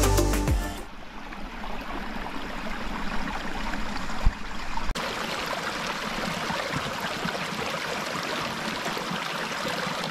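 Mountain stream running: a steady rush of water that takes over as background music fades out in the first second, with a brief break about five seconds in.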